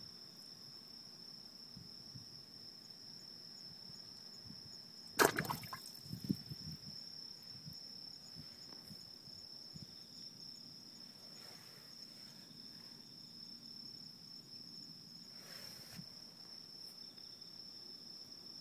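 Crickets trilling steadily on one high pitch. A single sharp knock comes about five seconds in, with a smaller one just after.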